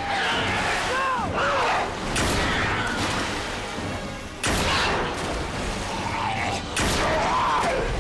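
Film action soundtrack: dramatic music score punctuated by three heavy booming hits about two seconds apart.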